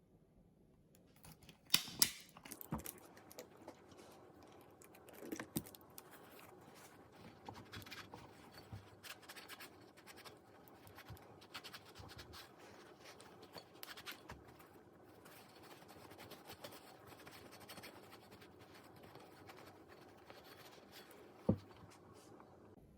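Scratching and scraping from hand work, with a few sharp knocks: a cluster about two seconds in, the loudest, two more a few seconds later, and a single one near the end.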